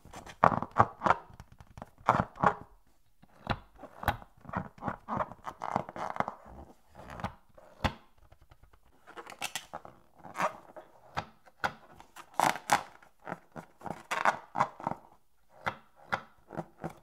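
Hands squeezing and rubbing a long filled latex balloon, the rubber squeaking and creaking in short irregular bursts with occasional sharp clicks.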